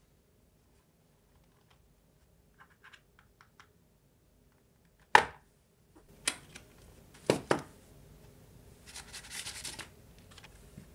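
A small cardboard earphone box handled and opened: light fingernail ticks on the cardboard, then a sharp snap about five seconds in as the box end is pried open. Several more crisp cardboard clicks follow, and a plastic bag crinkles as it is pulled out near the end.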